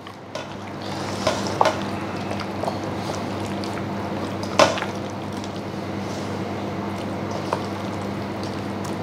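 A hand squishing and kneading chicken pieces in thick tandoori masala marinade in a steel bowl, rubbing the masala in. A few sharp clicks come through, the loudest a little before halfway, over a steady low hum.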